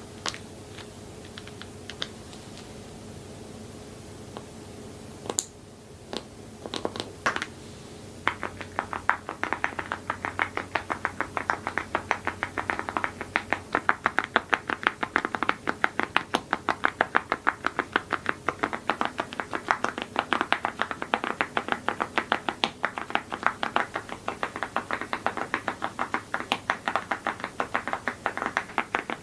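Mechanical keyboard with metal keycaps being typed on: a few scattered keystrokes, then fast, continuous typing from about eight seconds in.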